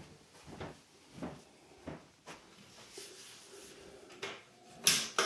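Footsteps walking through a doorway into a small tiled bathroom. Near the end comes a sharp double clatter as a wooden vanity cabinet is opened.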